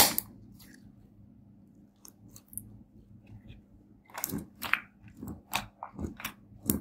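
Hands squeezing and pressing sticky glitter slime, coloured with lipstick and eyeshadow, giving wet crackling clicks: a loud burst at the start, a few faint clicks in the middle, then a quick run of loud clicks from about four seconds in as the fingers poke it flat.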